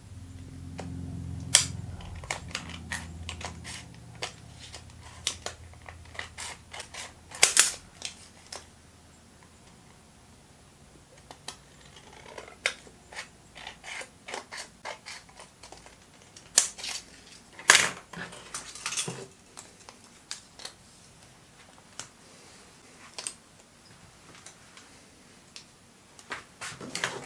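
Scissors cutting thin aluminium drink-can sheet: a run of irregular sharp snips and crinkling clicks of the metal, a few of them much louder.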